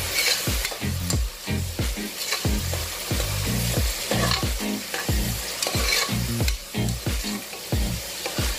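Steel ladle stirring and scraping sliced onions around an aluminium pressure cooker, with the oil sizzling steadily as the onions fry.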